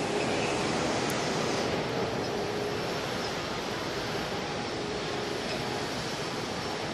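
Petratto Mini Metro folder gluer running: its belts and rollers make a steady, even mechanical noise, with a faint steady hum and one short click about a second in.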